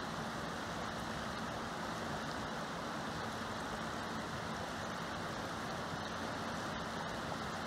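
Steady rushing of river water, an even hiss with no change in level.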